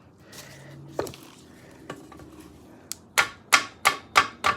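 A mallet striking a ratchet handle: one knock about a second in, then five quick, evenly spaced blows, about three a second, near the end. The blows are meant to break loose an over-tightened bolt that the ratchet alone won't turn.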